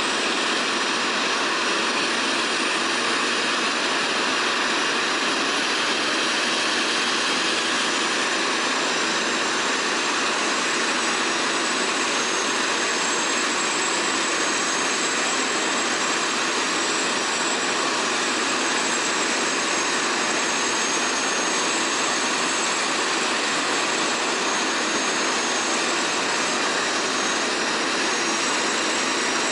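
Eurocopter AS350 B3 helicopter's Turbomeca Arriel turboshaft engine running steadily, an even rushing noise with a thin high turbine whine that strengthens about a third of the way through.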